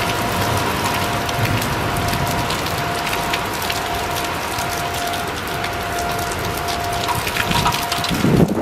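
Heavy rain pouring, with a railway level-crossing warning bell ringing steadily, signalling an approaching train. A low rumble comes in near the end.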